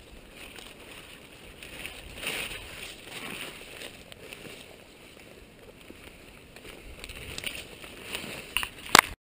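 Footsteps and the brushing rustle of low forest undergrowth as someone walks through it with a handheld camera, with small irregular clicks. A sharp knock about nine seconds in is the loudest sound, and the sound cuts off abruptly right after it.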